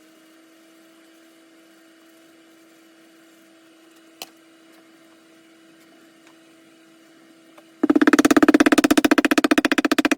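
A small motor hums steadily at a constant pitch, with a single click about four seconds in. Near the end a much louder, rapid, evenly pulsing rattle starts suddenly and runs on.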